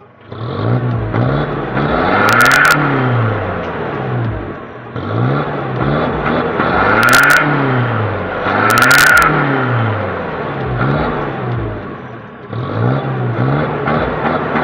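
Pickup truck engine with an aftermarket HKS exhaust, large 'tabung gajah' muffler and turbo, blipped repeatedly in the rev test, its pitch rising and falling about every second and a half. Short hisses come at the top of three of the revs.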